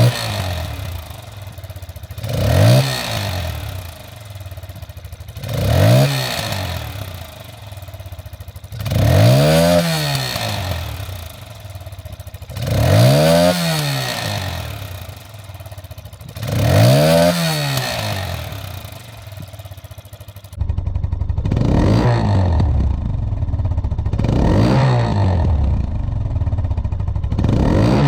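Italika DM150's 150 cc single-cylinder engine being revved in repeated throttle blips, each rising in pitch and falling back to idle, about every three and a half seconds. Near the end the sound changes to a closer, duller pickup while the blips continue.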